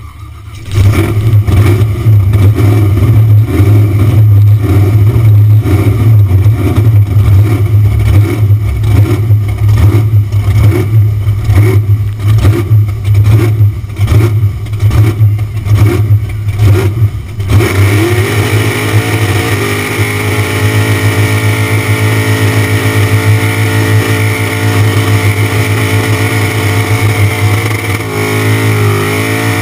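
Supercharged V8 of a Gemini burnout car, heard right at the engine: it runs with a regular pulsing lope at first. About seventeen seconds in, the revs climb and are then held high and steady for the burnout.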